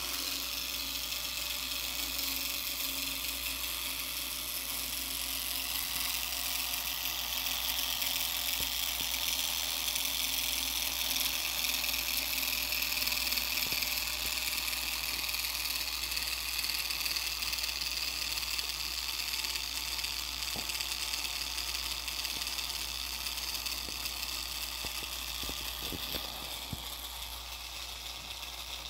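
Tiny 612 motor and homemade gearbox of a supercapacitor-powered micro model plane whirring steadily as they spin a 45 mm propeller. It starts suddenly and eases slightly near the end.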